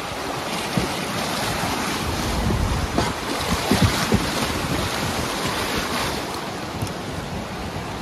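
Beas River white-water rapids rushing steadily around a raft, with wind buffeting the microphone in irregular low thumps.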